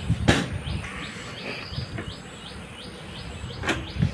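Knocks from a scooter's seat being handled and closed over its under-seat storage: one a moment in and another near the end. Behind them, steady high chirping runs on at about three chirps a second.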